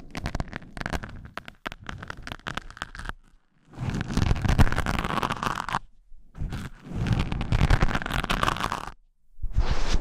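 Close-miked ASMR hand sounds: scratching and rustling in bursts of two to three seconds, with short pauses between them.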